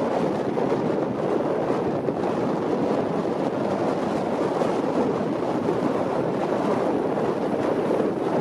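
Steady rushing wind with small waves lapping and breaking on a pebble lakeshore.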